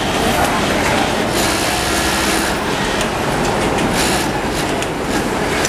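Industrial flatlock sewing machine stitching the waistband of a pull-on short, over the steady machine din of a garment factory floor, with a few brief clicks.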